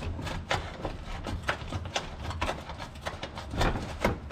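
Hand ratchet clicking in short, irregular strokes while backing out the small screws of a truck's plastic underbody cover, over a steady low hum.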